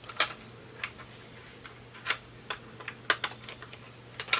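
Logitech K380 wireless keyboard clicking as it is handled: scattered sharp plastic clicks at an uneven pace, a couple of them in quick pairs.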